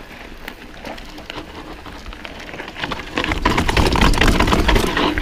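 Mountain bike rolling down a dirt singletrack: a dense crackle of tyres on dirt and small stones with the bike rattling. It gets much louder about three seconds in, with a low rumble added as the ride picks up speed.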